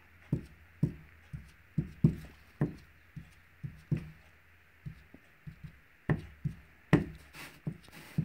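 Felt-padded stamper dabbed again and again onto the ink painting, short irregular taps about two to three a second.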